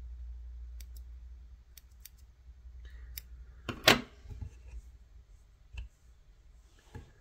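Small fly-tying scissors snipping stray fibres off a dubbed perch fly: a few faint clicks, then one much louder sharp snip or clack about four seconds in, and two softer clicks near the end.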